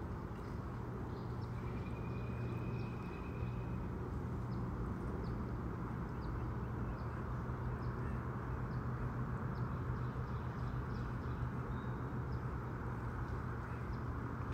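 Steady outdoor background noise with a low hum, one brief held high tone a couple of seconds in, and faint short high chirps scattered throughout.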